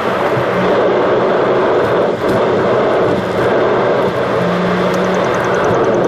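Car driving along a paved road, heard from inside the cabin: steady tyre and road noise with the engine running. A faint, fast, high ticking starts about five seconds in.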